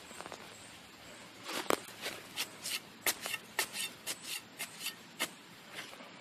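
Hand trowel digging into dry soil and leaf litter: a quick series of short scrapes, about three a second, starting about a second and a half in and stopping near the end.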